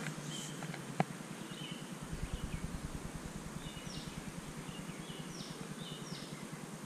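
Spinning reel being cranked to retrieve a lure: a fast, even low rattle of the turning gears from about two seconds in, after a single sharp click about a second in. A bird calls several short descending chirps over it.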